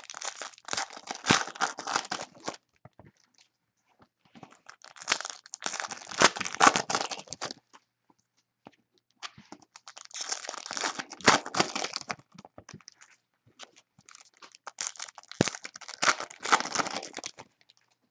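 Trading-card pack wrappers being torn open by hand, crinkling and tearing. The sound comes in four bursts of about three seconds each, one roughly every five seconds: one pack after another.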